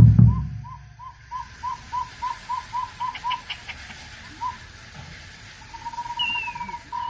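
Owl-like bird calls imitated by performers with a simple instrument or voice: a deep thump at the start, then a run of short hoots about three a second that thins out, a quick falling whistle, and a fast steady trill near the end.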